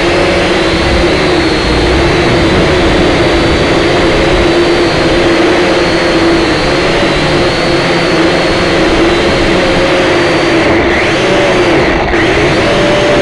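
Syma X5SC toy quadcopter's four small motors and propellers whining loudly, heard from its own onboard camera. The pitch wavers up and down as the throttle shifts.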